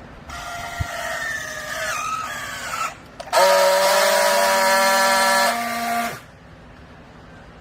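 Hydraulic clothes baler whining: a wavering whine for the first few seconds, then a louder steady whine for nearly three seconds that cuts off with a falling pitch.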